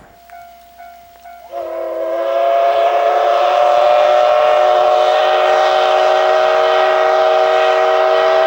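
Japanese steam locomotive's chime whistle: a faint tone at first, then about a second and a half in it sounds at full strength, several notes at once, rising slightly in pitch at the start and held steady for about seven seconds before cutting off suddenly.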